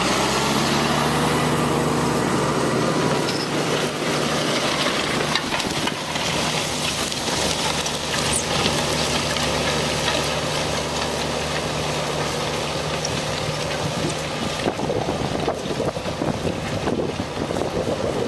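Valtra 191 tractor's diesel engine running steadily under load while ploughing. The engine note fades after about fourteen seconds, leaving rougher, noisier sound.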